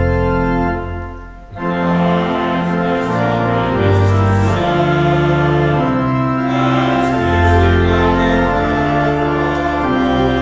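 Church organ playing slow, sustained chords over a moving bass line, with a short break about a second and a half in.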